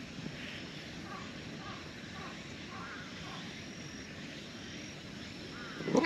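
Quiet outdoor background with a few faint short chirps. Near the end, a ginger tabby cat starts a loud meow.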